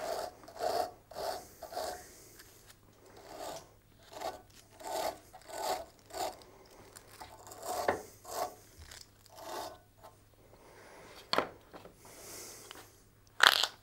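Wire brush scrubbing a freshly cut steel pipe thread, in short back-and-forth strokes about one or two a second, clearing off the metal bits left by the die. A couple of sharp knocks near the end as the work stops.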